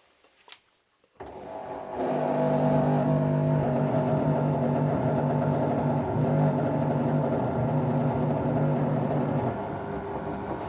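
LG F14A8RD washer-dryer starting up about a second in with a loud, steady hum made of a strong low tone and several higher tones, easing slightly near the end. This is the faulty humming noise that had already been repaired once under warranty and has now come back.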